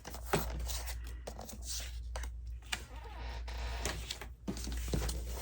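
Scattered light clicks and taps with some soft rustling: craft supplies and paper being handled on a work table.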